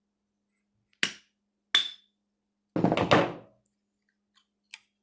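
Hammer blows while knocking out a barrel wedge to free a loose axe head: two sharp strikes about a second apart, the second with a short metallic ring, then a heavier cluster of thuds about three seconds in.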